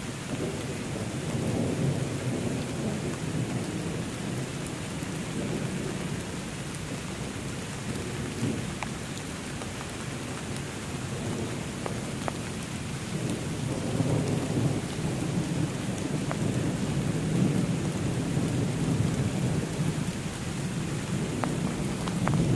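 Steady rain falling on forest leaves, with low rolling rumbles of thunder that swell and fade several times and build again near the end; the rumbles are hard to tell apart from passing airplanes. A few faint drip ticks stand out.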